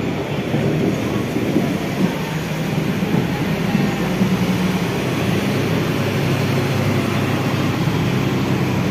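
Large intercity bus's diesel engine running as it moves off, a steady low drone.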